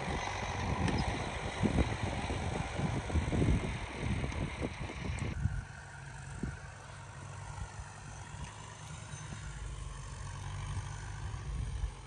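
Wind gusting on the microphone for about five seconds, then, after an abrupt cut, a steady low hum of a distant tractor engine running.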